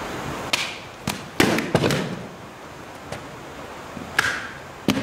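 A sword whooshing through the air and cutting a rolled target, with a quick run of sharp cut and impact sounds about a second in as pieces drop. A second swing whooshes near the end.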